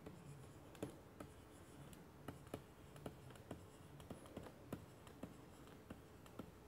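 Faint, irregular light taps and scratches of a pen stylus writing on a graphics tablet.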